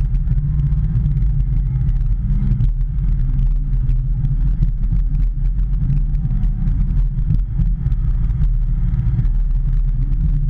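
Hitachi ZX210 excavator's diesel engine running steadily, with faint clicks and knocks over the hum.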